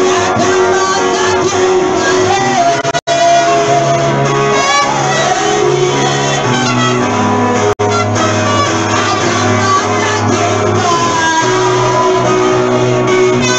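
Live worship music: voices singing over guitar and steady bass notes, cutting out for a split second twice.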